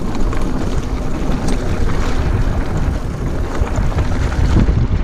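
Wind rumbling on the action camera's microphone as a mountain bike descends a dirt trail, with the bike's tyres and chain rattling in scattered clicks over the rough ground.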